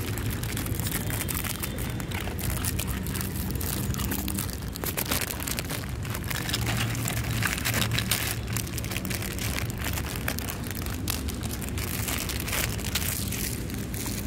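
Plastic biscuit packet crinkling and crackling as it is handled and the biscuits are shaken out, a dense run of irregular crackles.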